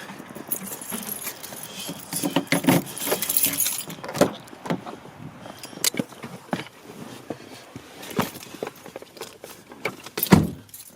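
Irregular rattling and clattering with many sharp clicks and bursts of hiss, louder for a stretch in the middle, and one heavy thump near the end.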